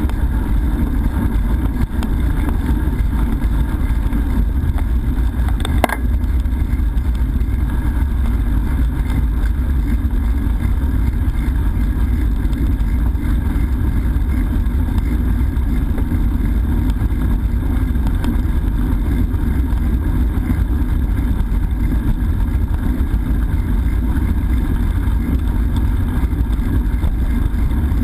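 Steady rumble of wind on the microphone from riding a bicycle, with one sharp click about six seconds in.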